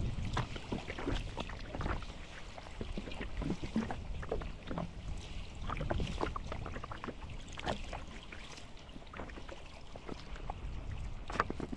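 Kayak paddling: a paddle blade dipping and splashing in the water stroke after stroke, with drips and water lapping at a small plastic kayak's hull, over a low steady rumble.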